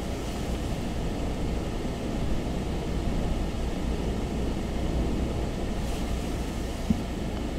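Steady rush of hurricane wind with a low rumble buffeting the microphone, and a brief bump about seven seconds in.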